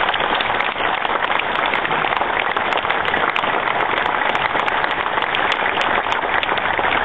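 A large crowd applauding, dense steady clapping that holds at an even level.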